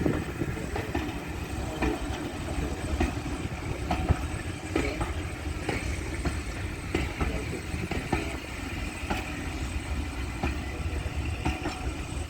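Class 50-hauled passenger train passing: a steady low rumble with irregular sharp clicks from the wheels running over the rails.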